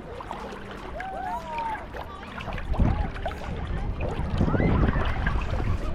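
Small waves washing onto the beach, with two louder surges partway through, under distant voices and calls of people on the beach.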